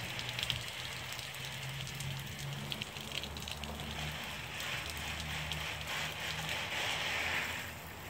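Steady, rain-like hiss of water running through and out of an Eccotemp L5 propane tankless water heater and splashing onto concrete, the heater's burner lit, with a low steady hum underneath.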